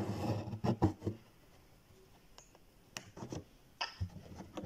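Embroidery thread being drawn through fabric stretched in an embroidery hoop, with soft rustles and taps of the needle and hoop: a cluster in the first second, a pause, then more about three to four seconds in.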